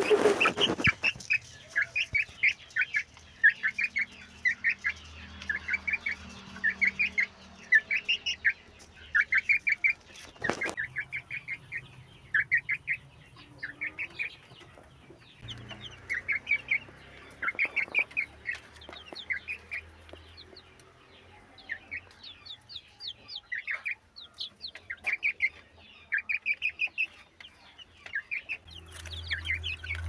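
Young chicks peeping, high short chirps in quick runs that go on throughout. A loud knock right at the start and another about a third of the way in.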